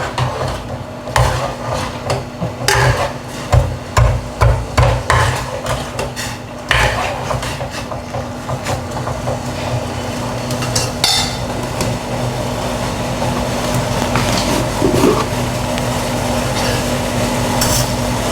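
A utensil knocking and clattering against a cooking pot as jaggery and water are mixed, irregularly for about seven seconds, then stopping. A steady hum carries on, with a few small clinks.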